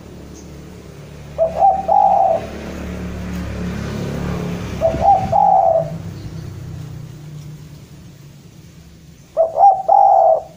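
Spotted dove cooing its call phrase three times, about three to four seconds apart: each phrase is a couple of quick short coos run into a longer held coo. This is the male's calling song, given as a challenge to a rival.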